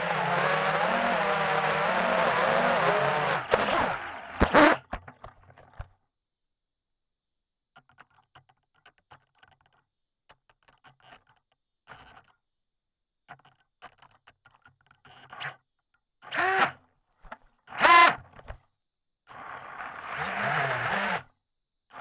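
FPV drone's motors whining at speed with a wavering pitch, cut off about four seconds in by the loud thumps of a crash into the grass. After a long near-silent stretch with faint ticks and rustles, the motors spin up twice in short bursts, then run again for about two seconds near the end while the drone lies in the grass.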